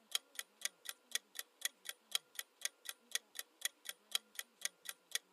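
Countdown timer sound effect ticking like a clock, evenly spaced at about four ticks a second.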